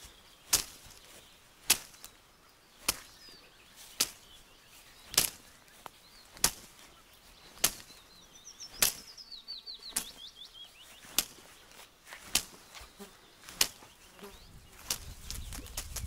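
Sharp slapping cracks of fast jabs landing, about a dozen at an even pace of roughly one every second and a bit. A brief run of high, falling chirps comes in about halfway through.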